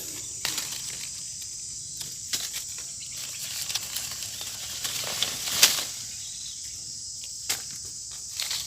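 Steady high-pitched drone of insects, with scattered rustles and knocks from mango branches and leaves being handled; the loudest knock comes about five and a half seconds in.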